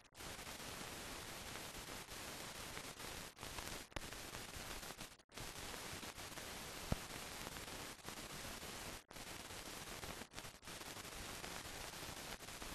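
Steady hiss of a film soundtrack with no recorded sound on it, broken by several brief dropouts and a faint click.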